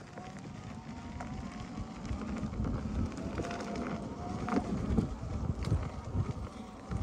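Electric unicycle rolling along a gravel trail: wind rumble on the microphone and tyre noise, with a faint motor whine that drifts slightly in pitch.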